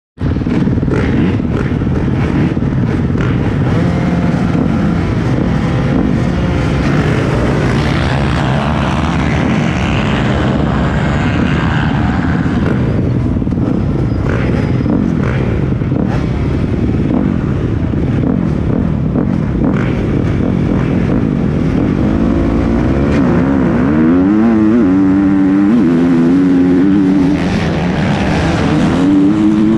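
Motocross bike engines running together at the starting gate, then about three-quarters of the way in the nearest bike accelerates hard off the start, its pitch climbing and stepping through several gear changes.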